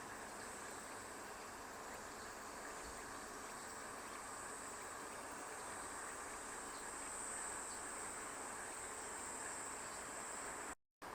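Insects keeping up a steady high-pitched buzz that swells slightly a few seconds in, over a low, even background hiss; the sound cuts out for a moment near the end.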